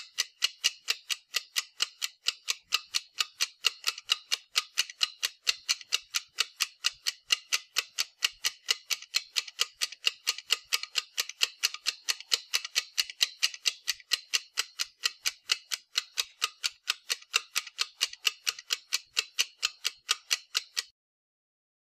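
Clock ticking, a quick, even run of sharp, high-pitched ticks that cuts off suddenly near the end.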